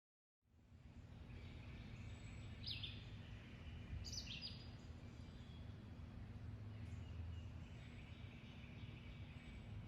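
Quiet outdoor woodland ambience, fading in from silence: a steady low hum with a few short bird chirps about three and four seconds in.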